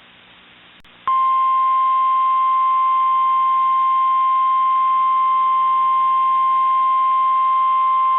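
NOAA Weather Radio 1050 Hz warning alarm tone, the signal that a weather warning follows. It is a single loud, steady tone that cuts in about a second in, after faint radio hiss, and holds unchanged.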